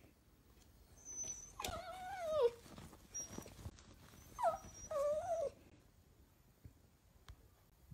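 A miniature dachshund giving drawn-out, high-pitched calls that fall in pitch: one long call about two seconds in, then two shorter ones a couple of seconds later.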